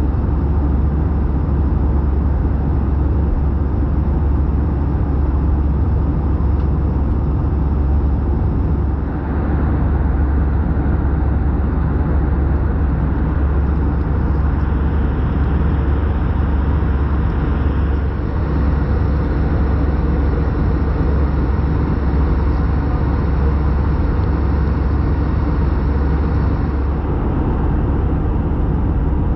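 Steady airliner cabin noise of an Airbus A320-214 in flight: a constant low rumble from its CFM56 engines and the airflow around the fuselage, heard from inside the cabin.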